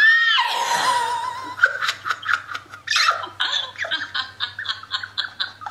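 A woman's sudden high, rising shriek of excitement that breaks into loud, helpless laughter, coming in quick gasps of about five a second.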